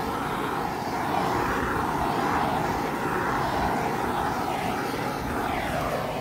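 Small handheld gas torch burning with a steady rushing hiss of blue flame as it is passed over wet poured acrylic paint.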